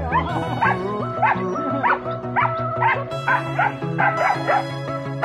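Hunting dogs barking repeatedly, about two barks a second, baying at a young wild boar. Background music with a steady bass line plays under the barking.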